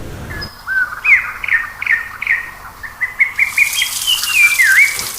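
A songbird singing a run of clear whistled notes, each sliding down in pitch, about three a second. The notes then quicken and climb higher before ending on a note that dips and rises again.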